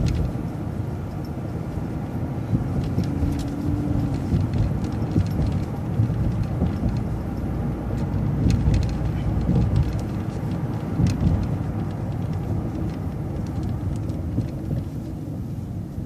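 City transit bus in motion, heard from inside: steady low engine and road rumble with scattered rattles and clicks.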